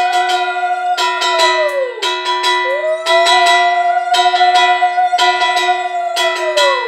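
A conch shell (shankha) blown in two long blasts, each sagging in pitch as the breath runs out: the first about two seconds in, the second near the end. A brass hand bell (ghanta) is rung over and over throughout, several strikes a second.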